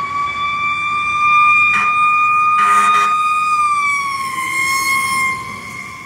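Fire engine siren sounding loudly at a steady high pitch, with two short horn blasts about two and three seconds in. About four seconds in, the siren's pitch drops a little as the 2003 Pierce Enforcer pumper goes past.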